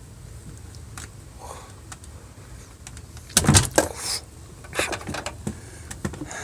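Handling clatter: scattered clicks and knocks over a low steady hum, with one louder thump and scrape about three and a half seconds in, and a few more knocks shortly after.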